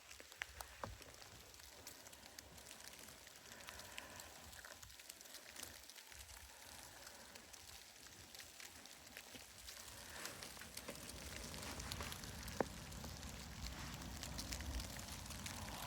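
Faint patter of thick, wet snow falling, with many small scattered ticks over a low wind rumble.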